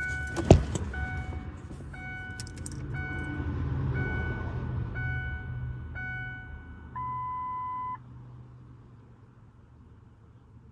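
Handheld OBD-II scan tool beeping about once a second while it reads the truck's engine computer, ending in one longer, lower beep about seven seconds in. A knock just after the start and a low rumble sit underneath.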